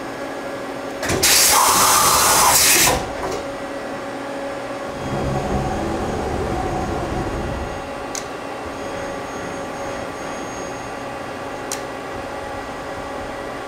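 Mazak CNC lathe humming steadily as its turret is called to tool four and brought in toward the bar. About a second in there is a loud hiss lasting about two seconds, then a low rumble for about three seconds, and two faint clicks.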